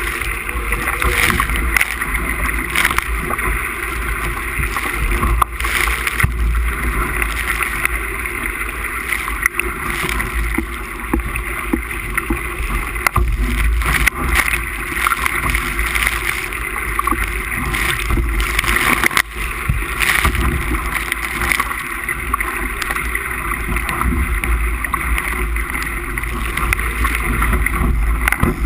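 Wind buffeting the microphone over water rushing and splashing along a Musto skiff's hull as it sails fast in gusty wind, with scattered sharp knocks and slaps.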